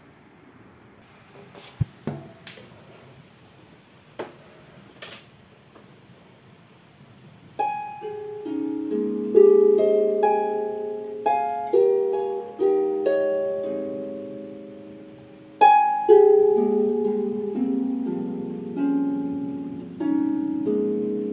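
A few sharp clicks and knocks, then a harp being played from about eight seconds in. The playing is an improvisation of plucked notes and chords, each note ringing on and fading.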